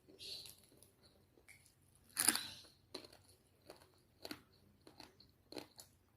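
Close-up chewing of food, with a sharp crunch about two seconds in and several smaller crunches after it, as prawn and rice are eaten.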